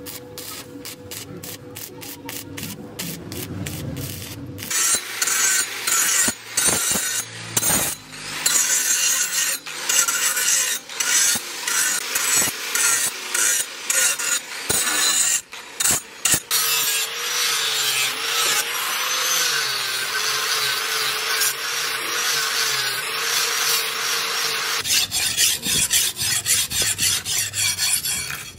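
Angle grinder grinding a steel knife handle, cutting in and out at first, then running steadily with a wavering whine. Near the end the steel blade is stroked quickly back and forth on a sharpening stone.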